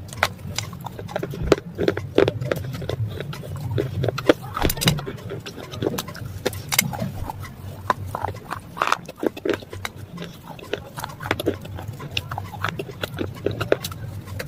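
Close-up crunching and chewing of brittle white chalk-like pieces: a continuous run of irregular sharp crunches and clicks as the pieces are bitten and broken in the mouth.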